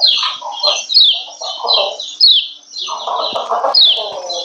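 Female kecial kuning (yellow white-eye) giving its 'ciak ciak' call: rapid, high, short descending chirps, several a second, the call used to rouse males into singing. A lower, coarser chattering sounds beneath it, strongest about three seconds in.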